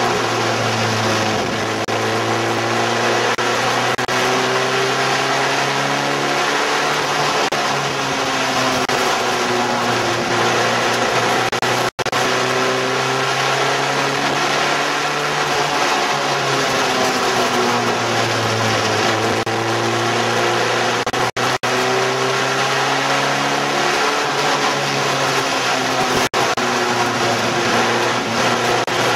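Race car engines lapping an oval track, the engine note rising and falling over and over as the cars accelerate and lift. The sound cuts out for an instant about twelve seconds in and again briefly a few times later.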